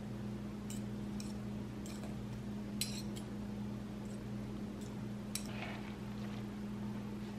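Metal forks clicking and scraping against each other and the plastic cutting board as smoked turkey meat is pulled off the bone, a handful of light clicks with the sharpest about three seconds in, over a steady low hum.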